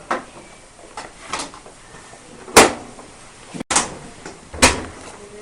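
A few separate sharp knocks and clatters from objects being handled, the loudest about two and a half seconds in.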